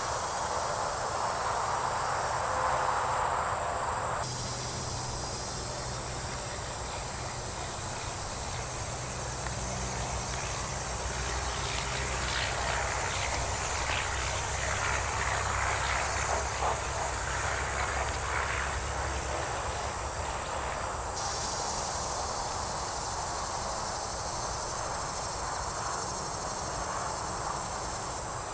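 A steady chorus of chirping insects, with a low engine-like hum that swells and fades in the middle and some short rustling noises.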